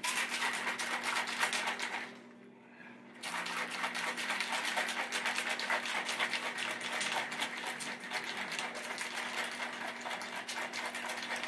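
Ice rattling fast in a cocktail shaker as a cocktail is shaken, in two spells with a break of about a second, two seconds in.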